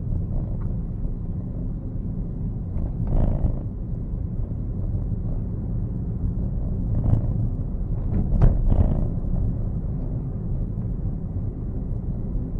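A car driving, heard from inside the cabin: a steady low road and engine rumble, with a few brief sharper knocks about three seconds in and again between seven and nine seconds.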